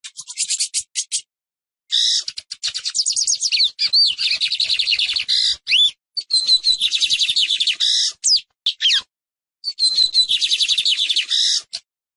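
Lined seedeater (Sporophila lineola) singing: four high-pitched bursts of fast, rapidly repeated notes, with a few sliding whistles woven in. The first burst is short, the second the longest at about four seconds, and short pauses separate them.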